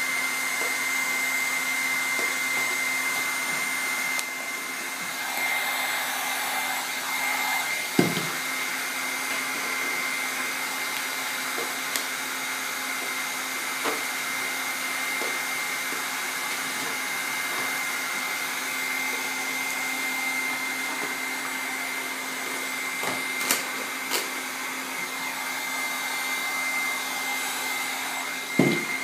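Electric heat gun running steadily: a fan blowing with a constant high whine and a lower hum. A few short knocks and taps come through it, the loudest about eight seconds in and near the end.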